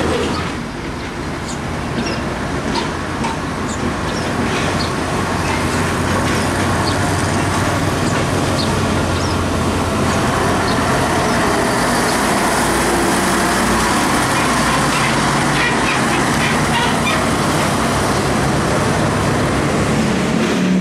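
Heavy diesel trucks passing slowly one after another, a steady engine hum with tyre and road noise that dips briefly about a second in.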